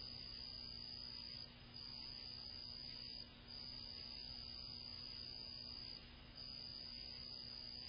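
A night insect trilling on one high note, in long trills of about two seconds with brief pauses between them, over a faint steady low hum.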